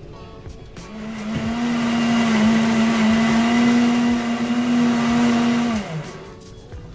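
Countertop electric blender switched on about a second in and running steadily for nearly five seconds, then switched off, its motor winding down with a falling pitch.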